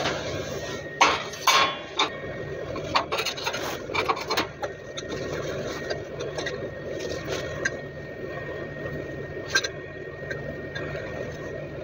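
Clinks and knocks of a freshly cast lead weight and metal tools against a steel plate, with rubbing as heavy work gloves pick the casting up and turn it, over a steady background hum. The sharpest knocks come about a second in and again around three to four seconds in, with one more near the end.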